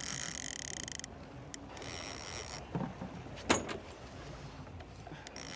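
Fishing reel being cranked in short spells, its gears whirring, as a hooked albacore tuna is reeled in. Two sharp knocks come a little after the middle.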